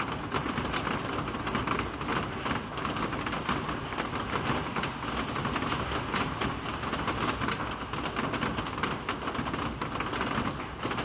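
Steady rain falling, an even hiss full of small drop ticks.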